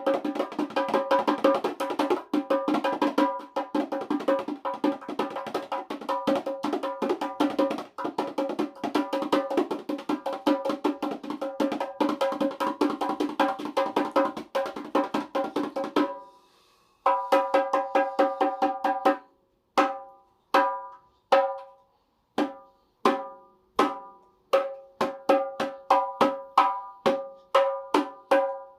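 Dikir barat rebana, hand-beaten frame drums with pauh-wood shells, played in a fast, dense rhythm of interlocking strokes for about sixteen seconds. After a short break they continue in slower, separate strokes, each ringing with a clear tone before it dies away.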